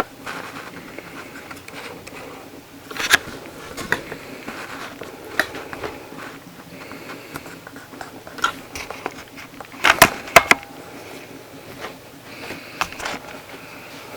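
Packaging of a boxed robot vacuum being handled and unpacked: scattered rustles, scrapes and sharp clicks and knocks, the loudest a cluster about ten seconds in.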